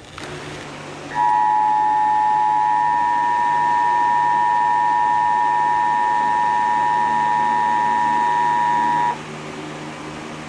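Emergency Alert System attention signal: the two-tone alert of about 853 and 960 Hz, sounding together and held steady for about eight seconds. It starts about a second in and cuts off sharply, marking the start of a broadcast severe weather warning.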